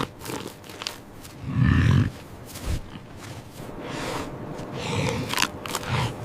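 An animal making low grunts, the loudest about one and a half seconds in, with scattered clicks and scuffs.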